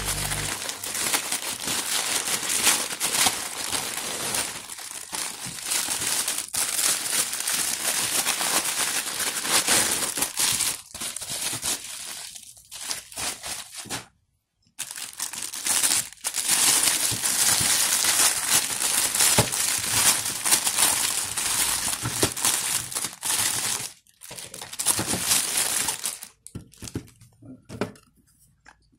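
Plastic packaging crinkling and rustling as hands open a plastic mailer bag and unwrap a slicer set from its clear plastic bag. There is a brief silent break about halfway, and the handling gets quieter and sparser near the end.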